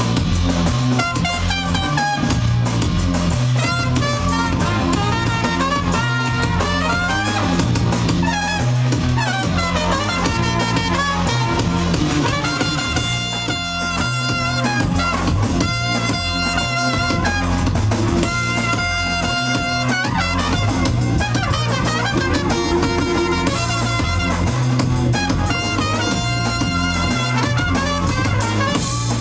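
Live band music: a trumpet playing held notes and short phrases over busy drums and a repeating low bass line.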